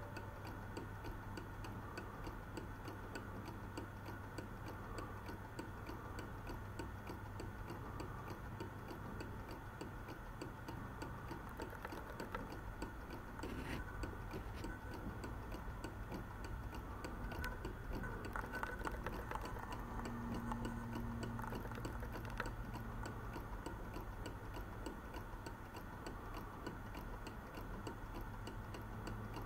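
Mechanical movement of a 1930s Oswald carved wooden owl clock ticking steadily and evenly.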